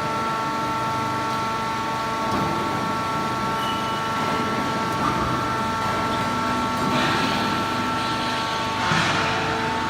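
Automatic wood-shaving baling machine running: a steady machine whine made of several held tones over a noisy rumble, with two short hissing swells in the last few seconds.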